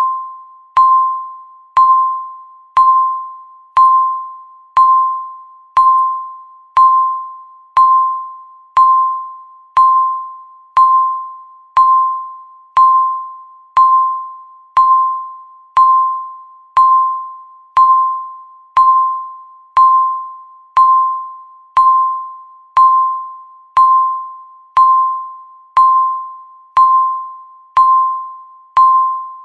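Countdown timer beeping once a second: a single mid-pitched ding each second, struck sharply and fading out before the next, in a steady even rhythm.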